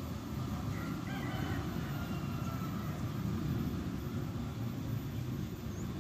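Steady low outdoor rumble, with a faint distant bird call starting about a second in.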